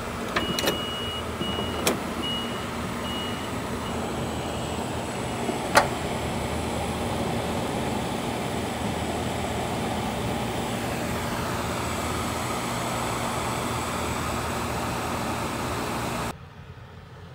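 Toyota Hiace camper van running, heard from inside the cabin as a steady engine hum with road noise. An electronic warning chime beeps about twice a second over the first few seconds and fades out. A few sharp clicks are heard, the loudest about six seconds in. The sound drops off abruptly near the end.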